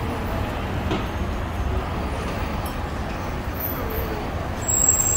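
City street traffic: steady road noise from passing vehicles, with faint voices in the mix. Near the end a louder pass begins, carrying a high, steady squeal.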